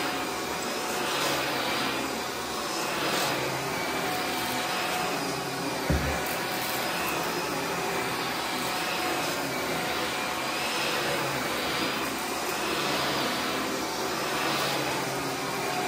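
Vacuum cleaner running on carpet, pushed back and forth in even strokes, its sound swelling and easing about every two seconds. A short thump comes about six seconds in.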